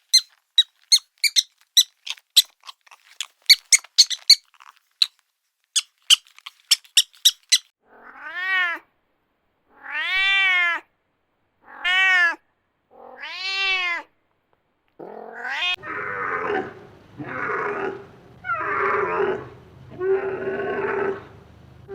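A quick run of many short, very high squeaks for about eight seconds. Then a cat meows four times, each call rising and falling in pitch. From about two-thirds of the way in come further drawn-out cries over a steady background hiss.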